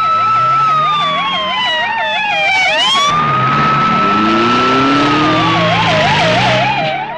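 Two police sirens sounding together: one a fast warble, the other a slow wail that holds, slides down in pitch and swoops back up, twice. Underneath is the running engine of the police vehicles arriving, revving briefly around the middle.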